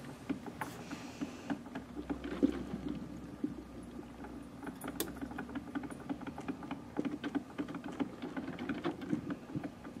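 Capresso CoffeeTEAM TS drip coffee maker brewing: water percolating through its thermal-block heater, heard as many irregular small clicks and pops over a faint steady hum.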